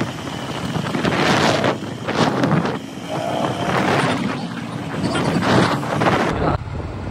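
Wind buffeting the microphone in rushes about once a second on a moving motorcycle, with the engine running underneath. About six seconds in the sound changes abruptly to a steadier, lower rumble.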